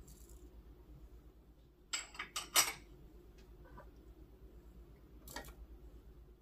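Kitchen utensils clinking against dishes: a quick run of about four clinks about two seconds in, and one more near the end.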